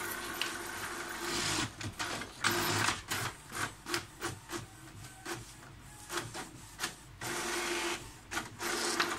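HP DeskJet 3070A inkjet printer printing a standard self-test page. The print carriage sweeps across the page in several separate passes, with clicks and ticks from the paper feed between them.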